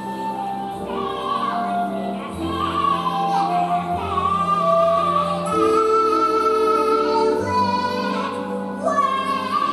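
A musical-theatre song: a singing voice holding long, wavering notes over sustained instrumental accompaniment.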